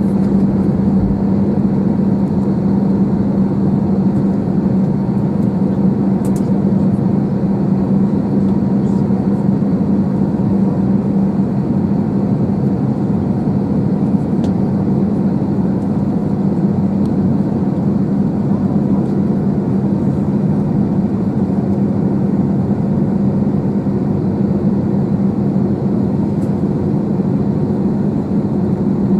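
Steady cabin drone inside an Airbus A321 on the ground, a constant low hum over an even rush of air, with a few faint clicks.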